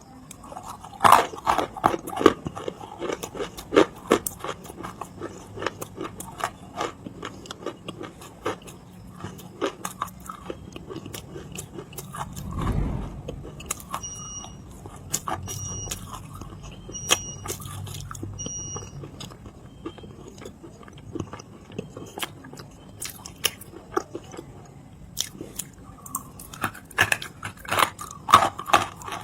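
Close-miked biting and chewing of Nakumatt clay: sharp crunches and crackles as pieces are bitten and crushed between the teeth, busiest in the first few seconds and again near the end. Midway, four short high electronic beeps sound about a second and a half apart.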